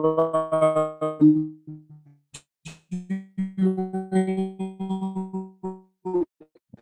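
A remote presenter's voice breaking up over a poor internet connection on a video call: instead of words, the line gives long, steady held pitches that cut off and restart, a sign of heavy packet loss garbling the audio.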